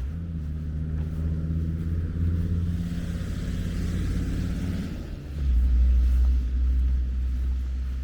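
A motor vehicle's engine running close by as a steady low hum. About five seconds in, it drops to a deeper, louder tone.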